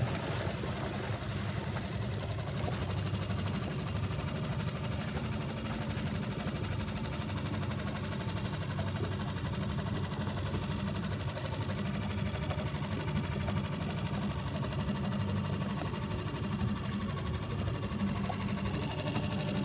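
A boat's engine running steadily at a constant speed, an even low drone that neither revs up nor slows.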